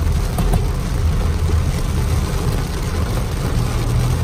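Heavy rain drumming on a car's roof and windshield, heard from inside the cabin as a steady, loud hiss over the low rumble of the moving car.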